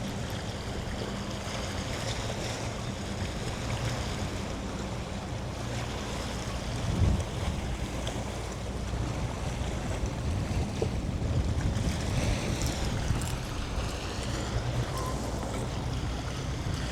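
Wind buffeting the microphone over small waves washing against the shore, a steady rushing noise. A single dull bump about seven seconds in.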